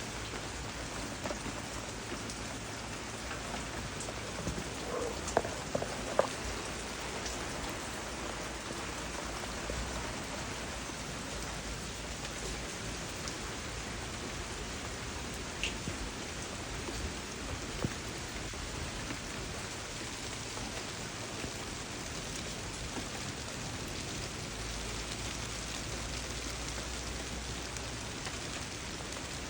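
Steady rain falling, with a few louder single drips standing out, several of them about five to six seconds in and two more around the middle.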